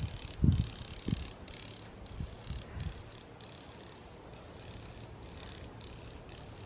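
An insect's loud, high, zapping buzz, coming in irregular bursts about one to two a second with short breaks between them, like an electric bug zapper. A few low thumps fall in the first three seconds.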